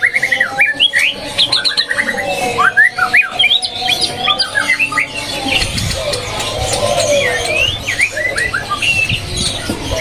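White-rumped shama (murai batu) singing in its cage: rapid runs of short, sharply rising chirps, one after another.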